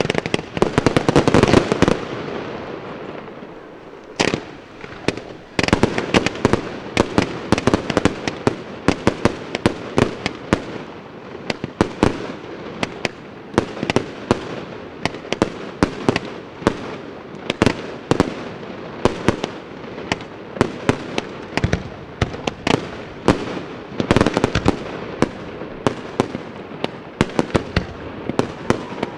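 Fireworks display: a rapid string of sharp bangs from shells launching and bursting, several a second. The bangs come thickest in the first two seconds, ease off briefly, then run on steadily from about five seconds in.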